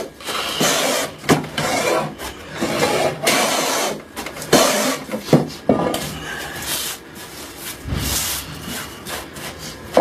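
Wooden hand plane pushed along a length of wood, taking shavings in repeated strokes of about a second each, some six or seven in all.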